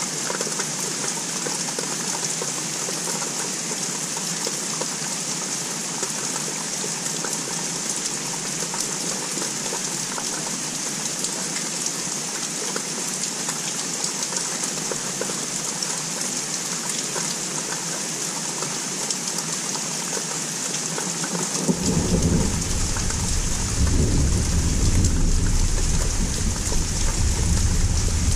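Steady rain falling and pattering on a surface. About two-thirds of the way in, a low rumble of distant thunder starts and grows louder, continuing beneath the rain.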